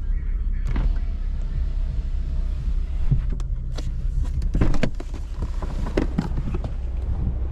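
Steady low hum of the 2017 Camaro LS's 3.6-litre V6 idling after a fresh oil change, with scattered knocks and clicks over it.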